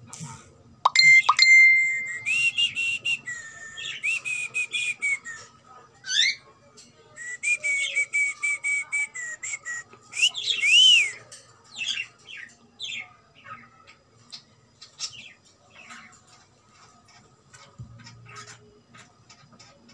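Cockatiel whistling and chirping: a held whistle note about a second in, then rapid warbling chirps and whistles that thin out and grow softer after about thirteen seconds.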